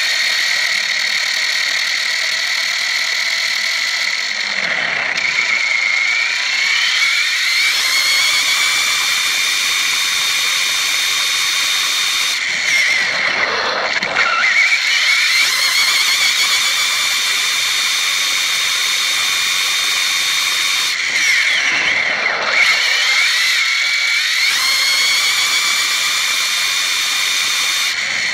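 Radio-controlled desert buggy's motor and gears heard from on board, giving a loud, high-pitched whine that holds steady at speed. The pitch drops as the buggy slows and climbs as it speeds up again, about five seconds in, around fourteen seconds and again around twenty-two seconds.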